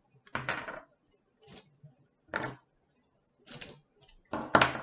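Wooden spring clothespins being unclipped from a block of glued book pages and put down on the table: about five short, separate clacks, the loudest near the end.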